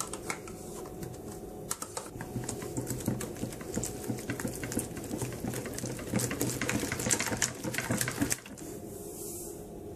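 Wire whisk beating eggs and plain yogurt in a plastic bowl: rapid clicking of the wires against the bowl, starting about two seconds in and stopping suddenly near the end.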